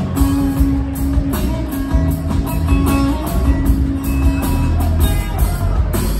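Live band music: an acoustic guitar played to the fore over drums, with a steady rhythm of strummed and struck beats, recorded from the audience.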